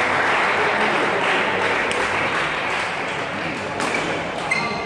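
Spectators cheering and clapping, with a couple of sharp racket hits on a shuttlecock about two and four seconds in.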